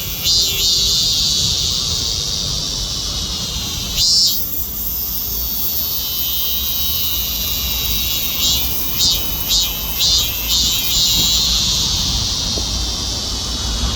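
Cicadas singing: a loud, high, continuous buzz that swells and fades. It breaks into a run of pulses about two a second near the start and again in the middle, over a low background rumble.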